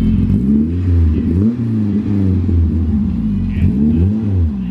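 Race truck's engine revved up and down about four times in quick blips, loud and deep.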